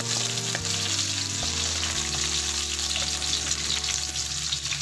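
Garlic and red onion sizzling in hot oil in a wok, stirred with a wooden spatula that gives a few short scrapes and taps against the pan.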